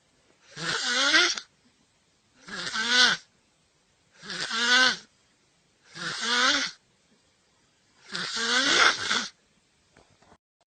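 A sleeping person snoring: five loud snores about two seconds apart, each lasting about a second with a fluttering, wavering pitch.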